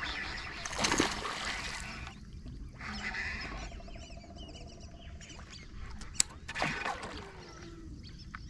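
A hooked peacock bass splashing at the water's surface as it fights on the line, in a few separate bursts, with one sharp click a little after the middle.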